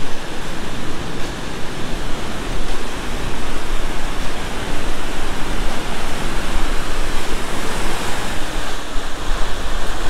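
Waterfall rushing: a loud, steady rush of falling water.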